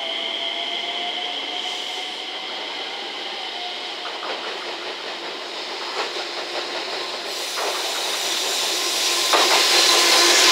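JR Freight EF210 electric locomotive hauling a container freight train through a station. It starts with a steady electric whine, then wheels click over the rail joints, and the sound gets louder as the locomotive goes by about nine seconds in.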